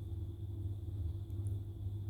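Steady low hum, with a thin high whine over it and a couple of faint ticks about a second and a half in.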